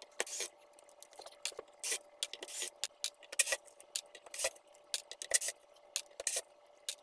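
Irregular clicks and scrapes of small metal tools on the metal casing of a BMW i3 inverter, as blue threadlocker is dug out of the screw heads so the screws can be undone.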